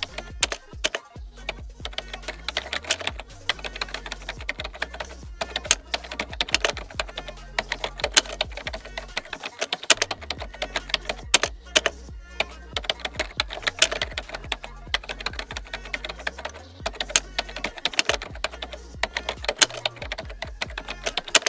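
Computer keyboard typing sound effect: rapid, irregular key clicks running on over background music with a low bass line.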